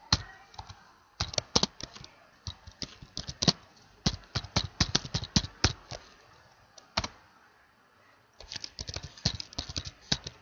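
Typing on a computer keyboard: quick key clicks in several bursts with pauses of about a second between them.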